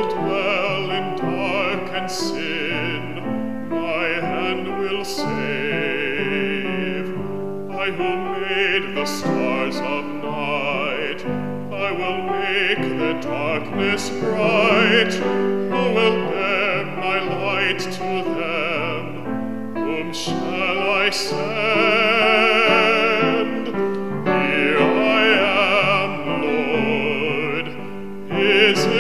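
A solo male voice sings in a trained classical style with vibrato, over an accompaniment. There is a short break in the singing just before the end.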